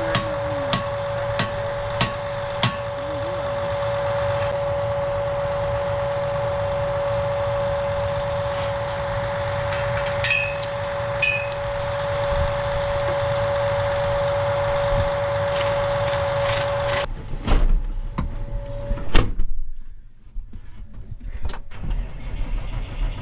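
A tractor engine running steadily with a constant whine, with scattered metallic clicks. About seventeen seconds in the steady sound stops, followed by a few loud knocks.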